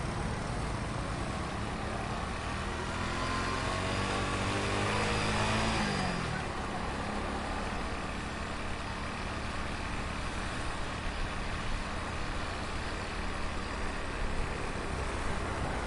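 Heavy street traffic with vehicle engines running. Between about three and six seconds in, one engine revs up with rising pitch, then drops away as it passes close. Steady traffic rumble follows.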